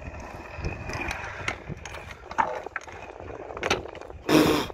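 Freestyle scooter wheels rolling on asphalt, with foot pushes and small clicks. Near the end there is a loud harsh hit lasting about half a second as the scooter meets the ledge.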